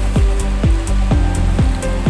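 Background music with a steady beat: a deep kick drum falling in pitch on each stroke, about twice a second, under sustained chords.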